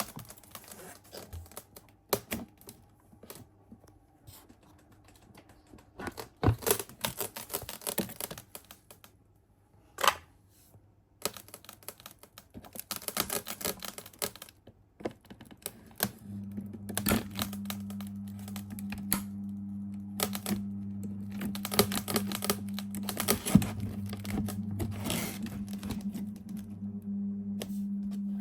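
Takasu Sangyo FF-200 ventilation fan: scattered clicks and rattles as it is handled, then about 16 seconds in its motor switches on and runs with a steady low hum while more clicking continues over it.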